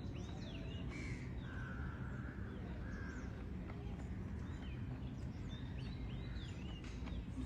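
Crows cawing a few times, with other small birds chirping repeatedly, over a steady low background noise.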